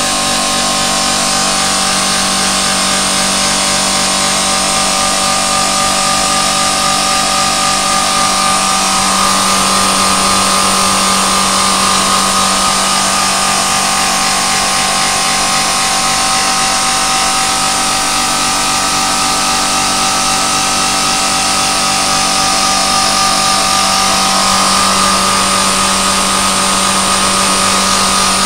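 Vane pump running steadily on a factory test rig: a loud, even machine whine with a constant hum beneath it and a dense hiss over the top.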